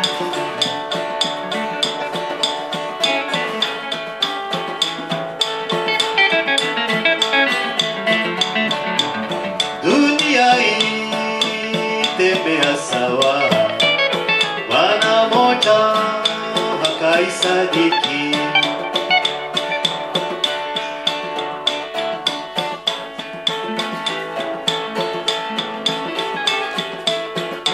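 Steel-string acoustic guitar fingerpicked, a steady stream of plucked notes and chords in an instrumental passage of the song.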